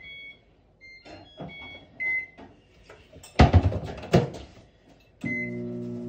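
Sunbeam microwave oven: keypad beeps as a cook time is entered, two loud clunks as the door is shut about three and a half seconds in, then a beep near the end and the oven starting up with a steady hum.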